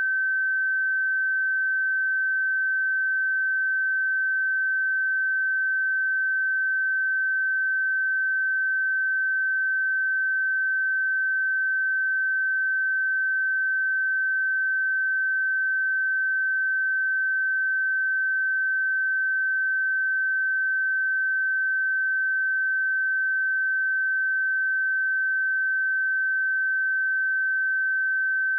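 Steady 1542 Hz pure sine-wave test tone, one unwavering high-pitched note with no overtones.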